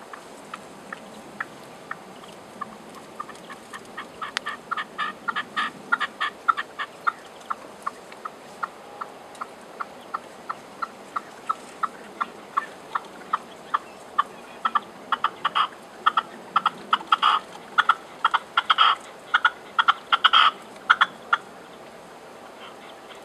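Red-legged partridge singing: a long series of short, harsh chuck notes, sparse at first, then running into quick clustered bursts that are loudest in the last third. The calling stops shortly before the end.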